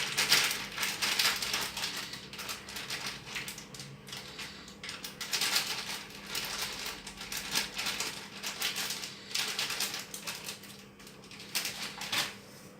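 Corn starch being mixed in a bowl: a dense, irregular run of crunchy scraping clicks, with louder bunches at the start, about halfway through and near the end.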